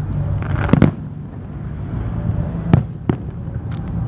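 Aerial fireworks going off: a few sharp bangs, the loudest a little under three seconds in, over a steady low background rumble.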